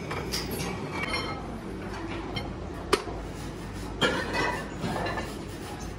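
Metal clinks and knocks from tools and steel parts being handled at a metal lathe, over a steady machine hum. One sharp click about three seconds in and a knock about a second later stand out.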